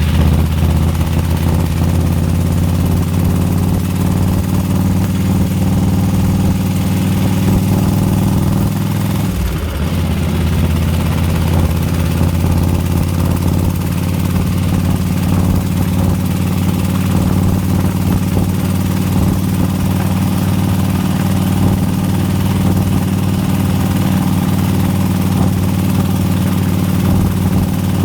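Harley-Davidson 103-cubic-inch V-twin idling steadily with a ticking that the owner calls horrible and cannot identify. The engine speed wavers briefly about nine seconds in.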